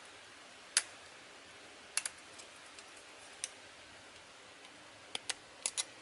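Light, sharp clicks and taps of a small die-cast metal car body and a hand tool being handled: one about a second in, a quick pair at two seconds, another near three and a half seconds, and a cluster of four near the end.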